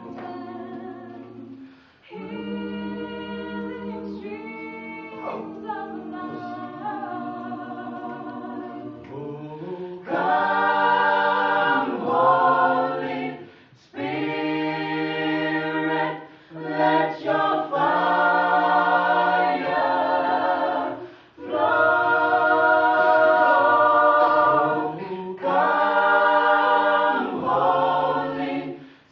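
Small mixed-voice gospel group singing a cappella in close harmony, holding chords in phrases with brief breaks between them, growing louder about a third of the way in.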